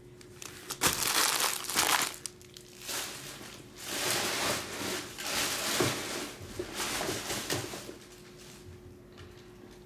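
Foil trading-card pack wrapper crinkling and being torn open, in two spells of rustling bursts, the second and longer one ending about two seconds before the end.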